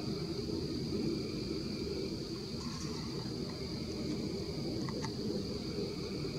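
Insects trilling steadily at a high pitch over a constant low rumble, with a few faint short chirps about three and five seconds in.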